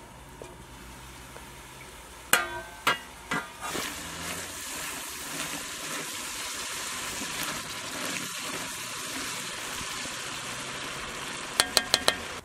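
Tomato and pepper sauce sizzling and bubbling in a pan as it is stirred with a slotted spoon. A few sharp knocks come about two seconds in, and four quick sharp taps near the end.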